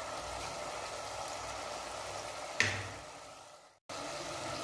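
Onion-tomato masala sizzling steadily in oil in a pot, with one sharp knock about two and a half seconds in. The sizzle cuts out briefly near the end, then resumes.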